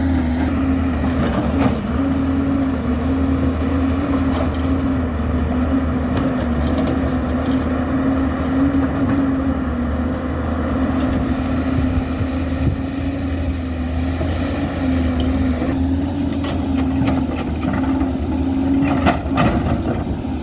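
Heavy diesel construction machinery engine running steadily, with a few sharp knocks near the end.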